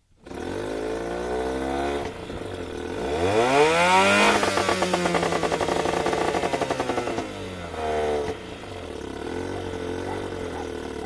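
A 3 hp two-stroke Johnson outboard motor fires up suddenly and runs. It is revved up about three seconds in, held at high speed for a few seconds, then drops back, gets one short blip, and settles to a lower, slightly uneven idle.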